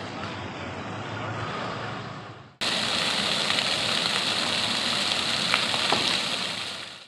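Outdoor background noise for the first two and a half seconds, then a louder steady hiss of a splash fountain's water jets spraying and falling onto the pavement, with a few small splashes near the end.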